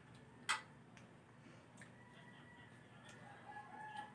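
A single sharp knock about half a second in, then a faint, drawn-out bird call that grows louder near the end.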